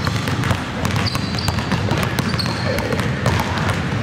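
Several basketballs dribbled at once on a hardwood gym floor, a busy stream of overlapping bounces, with short high sneaker squeaks a few times as players cut and stop.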